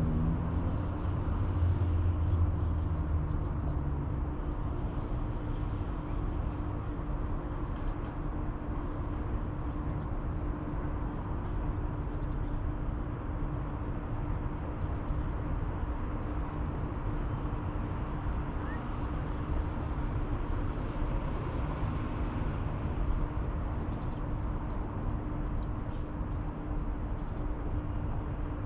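Riverside city ambience: an even rush with a steady low rumble of distant traffic and a faint steady hum. A heavier low rumble fades away over the first few seconds.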